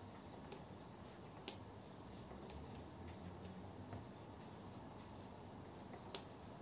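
Light, sharp clicks of a pen-spinning pen knocking against the fingers as it is spun and caught, about five ticks spaced a second or so apart, the loudest about a second and a half in and near the end.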